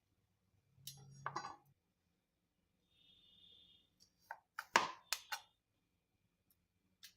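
Stainless steel chef's knife cutting onion and striking a cutting board in a few separate strokes: a short run about a second in, a louder run of four or five strikes around five seconds in, and one last tap near the end.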